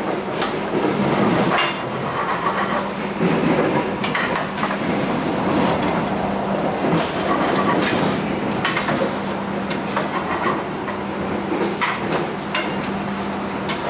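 Metal spatulas scraping and clinking against frying pans in short sharp clicks, over the steady running noise and low hum of a moving passenger train.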